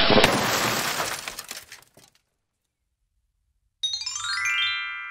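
Outro sound effects: a loud crash like shattering glass that dies away over about two seconds, then after a pause a quick rising run of bright chime notes that settles into a held, ringing chord.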